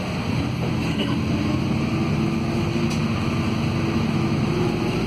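Interior of a Volvo B5RH hybrid city bus accelerating, first on its electric motor. The Volvo D5F diesel engine cuts in as the bus passes about 25 km/h, adding a steady engine tone that comes in about a second in.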